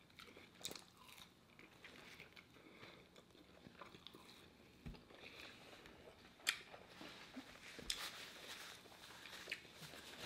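Faint mouth sounds of eating: biting and chewing a fish sandwich and fries, with small wet clicks and a couple of sharper ticks. Near the end, paper napkins rustle as hands are wiped.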